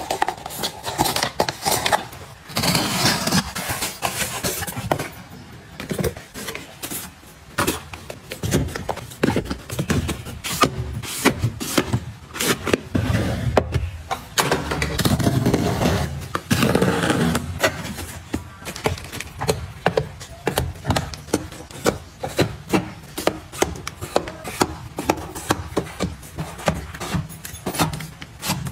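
Close-up handling sounds from restocking: packets crinkling and rustling, a drawer being worked, and small milk cartons set down on a plastic cart shelf, with many light taps and knocks.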